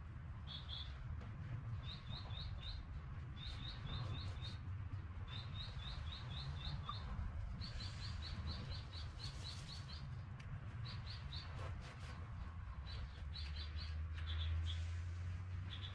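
Small birds chirping in quick runs of short, high notes, three to seven at a time, repeated throughout, over a low steady rumble that grows louder near the end.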